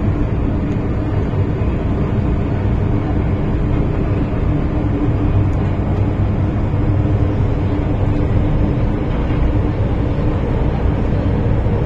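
Cabin noise of an MTR Tsuen Wan Line M-Train running: a steady rumble of the wheels and running gear with a steady hum underneath.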